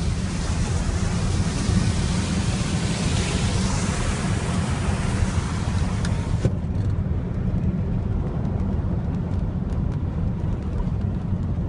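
A car driving on a rain-soaked street, with a steady low rumble throughout. Over the rumble runs a hiss that cuts off suddenly about six and a half seconds in.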